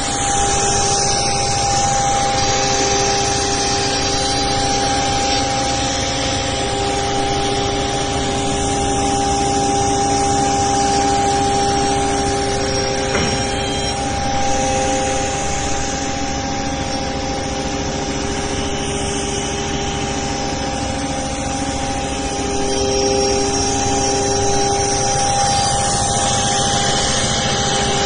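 CNC router spindle running while its bit carves wavy grooves into a wooden board: a steady tone over continuous cutting noise.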